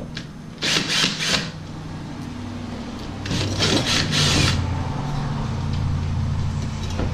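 Cordless drill-driver backing bolts out of the metal threaded inserts behind a plastic boat's transom plate. The motor runs with a steady hum, with two short bursts of grinding noise about a second in and around four seconds in.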